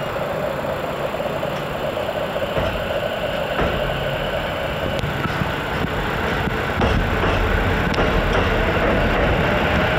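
E233-series electric commuter train pulling into the platform as it slows, with wheels rumbling on the rails and a whine that slowly drops in pitch. It grows louder about seven seconds in as the cars pass close by.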